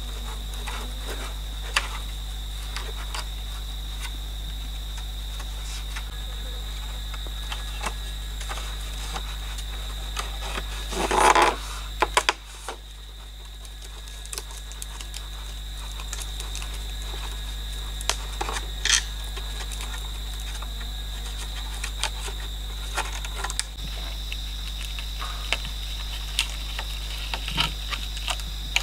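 Bamboo poles knocking and clattering as they are handled and fitted onto a pole frame, with scattered light knocks and a louder burst of clatter about eleven seconds in, over a steady high insect drone.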